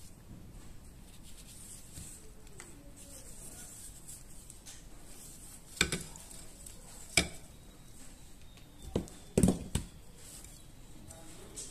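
A few sharp metallic clicks and knocks from the stripped steel frame and small parts of a Jericho 941 FB pistol being handled on a rubber work mat. A single click comes about six seconds in and another about seven seconds in, then a quick cluster of louder knocks around nine to ten seconds.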